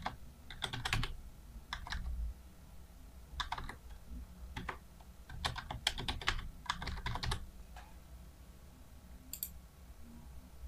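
Computer keyboard typing in several short bursts of keystrokes, then a single separate click near the end.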